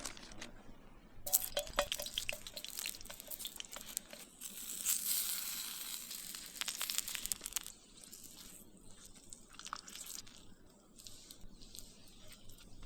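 Pierogies frying in a pan over a campfire: irregular crackles and pops with a sizzling hiss that swells in the middle and then dies down.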